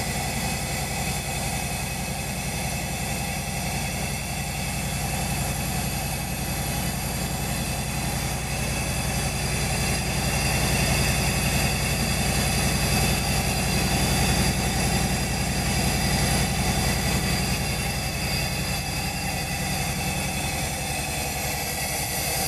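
Railway ultrasonic seamer running steadily as it travels along its chain-and-sprocket-driven beam, seaming overlapped fabric backing under the horn: a continuous machine hum with several steady high whining tones above it.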